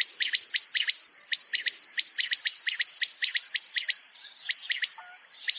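Quail calling in short, sharp chirps, several a second at an uneven pace, over a steady high-pitched trill.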